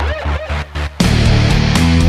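Background heavy rock music with distorted guitar, chopped into short stabs for the first second, then playing full and sustained.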